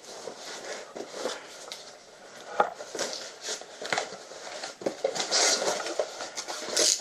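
Cardboard shipping box being handled and opened by hand: a run of scrapes, taps and rustling, with louder rustles near the end.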